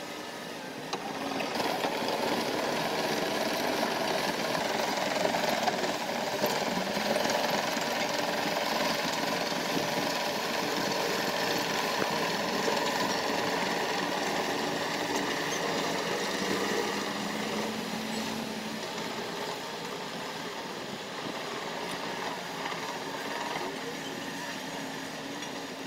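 Construction machinery at work: the diesel engines of tracked hydraulic excavators and a dump truck running steadily together, with a rattling edge and engine notes that shift slowly as the machines load and move.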